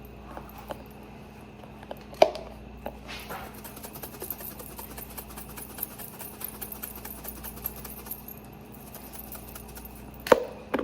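A utensil stirring dry seasonings in a small bowl: rapid clinking and scraping, with a sharp clink about two seconds in and a knock near the end.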